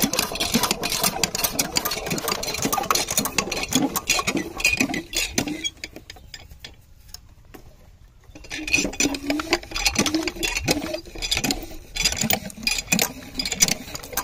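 Small single-cylinder diesel engine of a shallow irrigation pump being hand-cranked, clattering with a fast ticking. The sound drops away for about two seconds near the middle, then the clatter picks up again.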